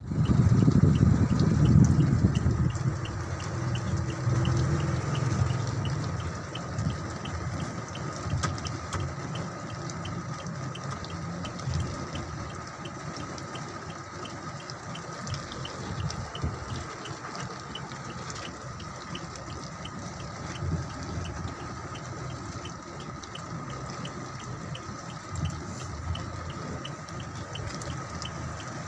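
Rain falling, with water running and splashing, loudest in the first few seconds and then steady. A fast, even ticking runs underneath.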